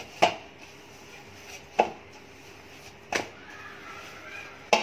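Four sharp knocks, spread about a second and a half apart, on a kitchen work surface as risen burger-bun dough is punched down and worked by hand.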